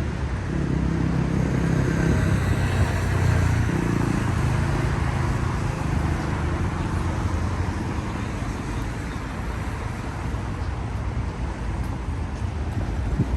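City road traffic passing on a wet road: a car's engine rumble and tyre hiss loudest over the first few seconds, easing into a steady traffic hiss.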